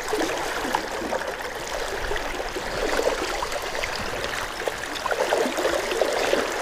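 River water flowing and trickling steadily, with small splashes and gurgles close by.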